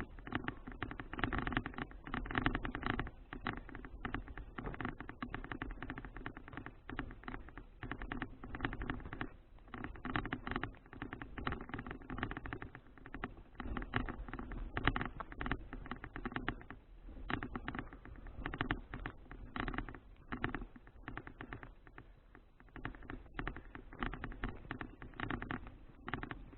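Riding noise picked up by a bicycle-mounted action camera: wind buffeting the microphone, mixed with a dense, irregular crackle and rattle.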